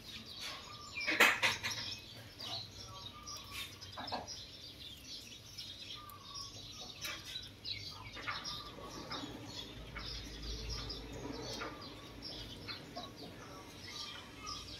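Small birds chirping now and then, with one loud sharp knock about a second in.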